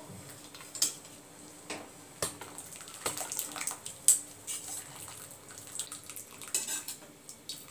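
Blanched spinach being scooped out of hot water with a slotted steel spoon into a steel strainer: water dripping and splashing back into the pan, with scattered light clinks and knocks of metal on metal.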